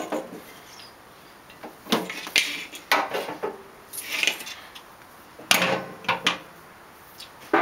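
Welding leads being coiled and hung on the steel hooks on top of a Lincoln AC/DC 225/125 stick welder: a series of irregular metallic clanks and rattles as the cables and their fittings knock against the hooks and the welder's case.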